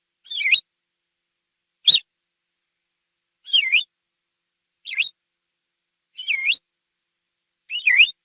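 Quail calling: six short whistled chirps, about one every one and a half seconds, each a quick note that dips and rises again, some in two parts, with silence between.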